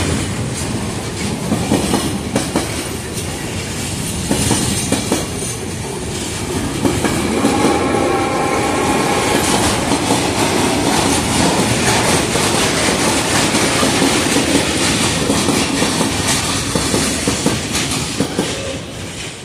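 Freight wagons rolling past at speed: a steady clatter of wheels over rail joints, with a faint squeal of wheels for a few seconds midway. The noise fades as the last wagon passes near the end.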